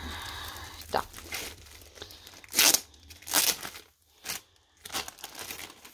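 Clear plastic wrapping around a rolled diamond-painting canvas crinkling and tearing in several short bursts as it is pulled open.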